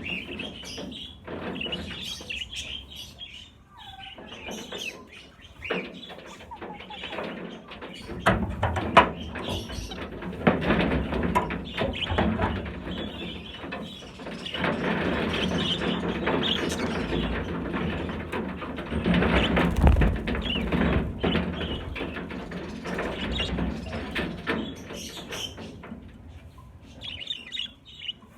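A flock of budgerigars chirping, with repeated wing-flapping and flutter that grows busier and louder through the middle stretch before settling again near the end.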